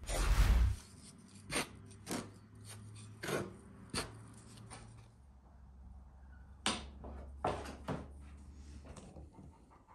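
Wooden spoon stirring and scraping through seasoned flour in a metal tray: irregular light scrapes and taps. A brief louder thump in the first second is the loudest sound.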